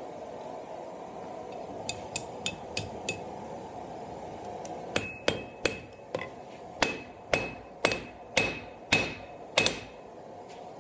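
Hand hammer striking hot steel held in tongs on an anvil, forging a taper: a few light taps about two seconds in, then from about halfway a steady run of heavy blows, about two a second, each with a short metallic ring.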